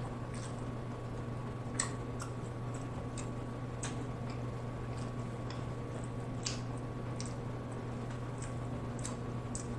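Hands feeling through shellfish and sauce in a glass dish of seafood boil, giving faint, scattered small clicks and squishes, over a steady low electrical hum.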